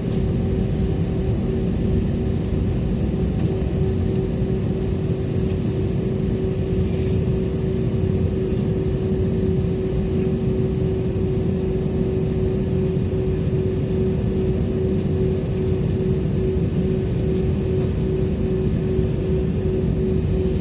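Jet airliner's engines heard from inside the cabin: a steady drone and rumble with a steady whine above it, holding even throughout.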